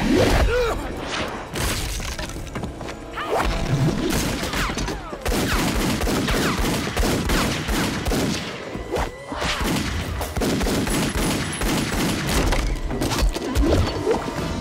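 Movie fight sound effects: pistol shots, punch and kick impacts and bodies thudding down, rapid and densely packed, with a few men's cries among them.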